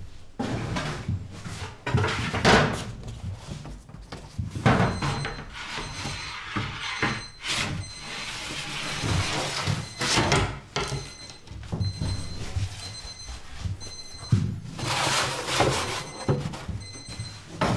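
A long-handled peel and metal bread tins knocking and scraping in the mouth of a wood-fired oven, with clanks from the oven's metal door: an irregular run of sharp knocks and clatters with scraping between them.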